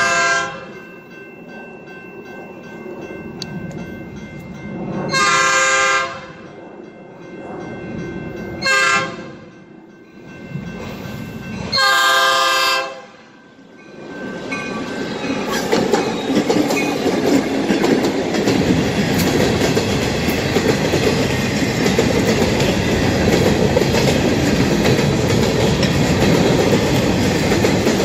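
Norfolk Southern diesel locomotive sounding its multi-note air horn for a grade crossing: four blasts, the third one short. It then runs past with its freight cars, the engine and the wheels clattering over the rail joints.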